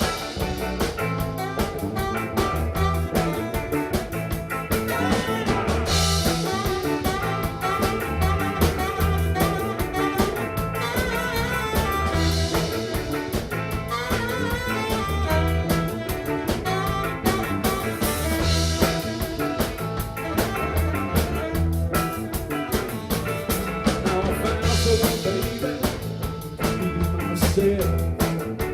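Live blues band playing an instrumental passage: drum kit keeping a steady beat under a repeating bass line, with lead instruments over the top.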